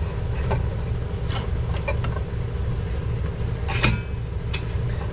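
A steering knuckle being handled and re-clamped in a bench vise: scattered metal clicks and knocks, the loudest a sharp clank about four seconds in that rings briefly. A steady low hum runs underneath.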